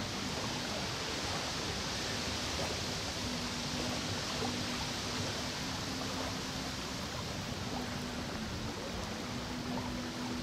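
Steady rushing of a fast-flowing river current, with a faint low hum that comes and goes.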